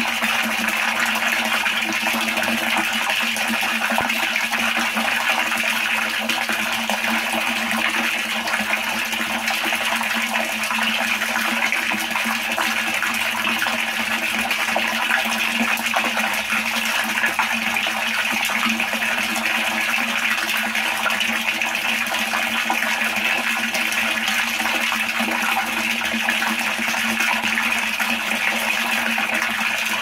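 A stream of water pouring into standing water, splashing steadily and continuously without a break.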